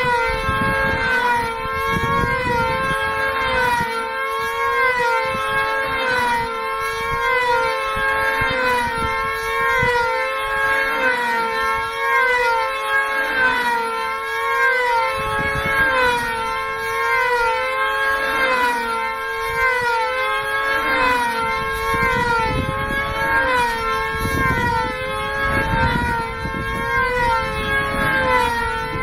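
Two F2D combat control-line model aircraft flying together, their small high-revving two-stroke engines making a continuous loud whine. The two pitches rise and fall and cross each other over and over as the models circle the pilots, like a wavering siren.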